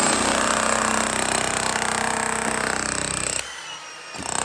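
Petrol-engined saw running steadily under load as it cuts out the surface for a cable trench. Its sound drops away for under a second near the end, then comes back.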